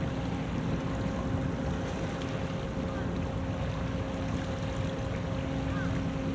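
Car carrier's engines droning steadily across the water, a low rumble with a constant hum in it, with wind on the microphone.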